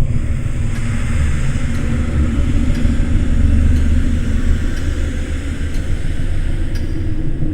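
Dark horror ambience: a steady deep rumble with a hissing layer that comes in at the start and a few faint clicks scattered through it.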